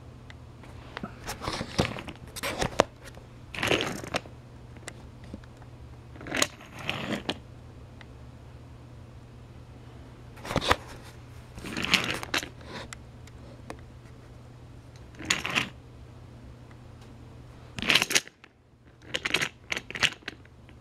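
Irregular handling noises from a toy train set: short rustles and clicks as the toy engine and plastic pieces are moved by hand, over a steady low hum.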